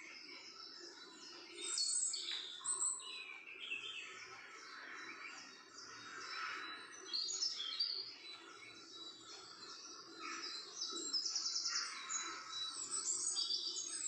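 Several small birds chirping and singing in overlapping calls, with a fast trill late on.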